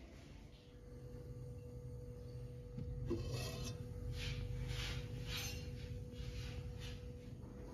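Pizza cooking in a covered non-stick frying pan on an electric hot plate: faint sizzling in short hissy spurts through the middle, over a steady low hum and a thin steady tone.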